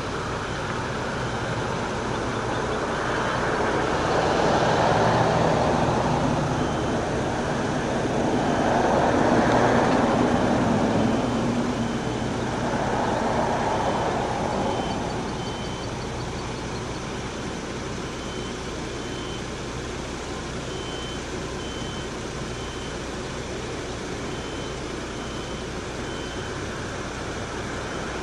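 Outdoor traffic noise that swells and fades three times as vehicles pass, with a reversing alarm beeping repeatedly through most of it.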